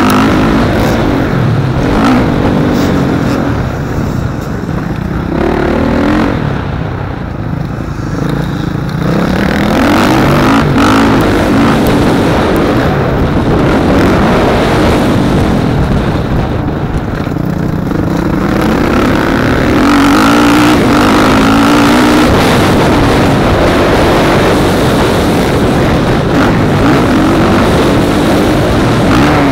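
Motocross bike engine heard from on board, revving up hard and rolling off the throttle again and again while riding a dirt track. It goes quieter twice, about a quarter of the way in and just past halfway, where the throttle is closed.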